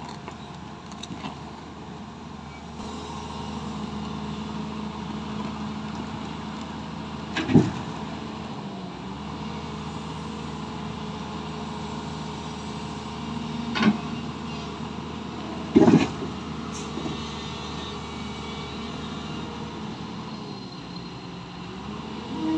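SANY SY205C tracked excavator's diesel engine running under hydraulic load as it drives off a flatbed truck's deck, its pitch rising and dipping with the work. Three loud sharp clanks come from the tracks and bucket on the steel deck, about a third of the way in and twice more later, close together.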